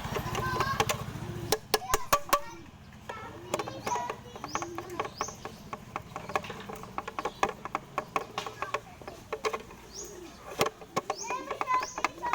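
A low motor hum, likely the blender under repair, cuts off about a second and a half in. It is followed by irregular sharp clicks and taps of small parts being handled, with birds chirping and faint voices in the background.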